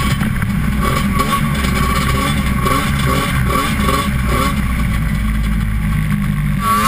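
Snowmobile engine running steadily while the sled rides over snow, heard up close from the hood.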